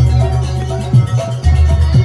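Javanese jaranan accompaniment music played live: drum strokes and ringing metallic pitched percussion over a steady low bass.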